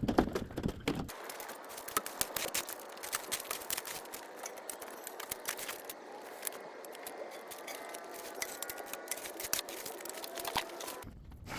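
Dense, irregular clicking, snapping and rattling of dry vines and brush being cut and pulled down, over a steady hiss.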